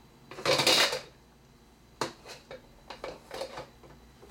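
Hard plastic toy pieces clattering and knocking on a plastic high-chair tray: a rattling clatter about half a second in, a sharp knock about two seconds in, then several lighter taps.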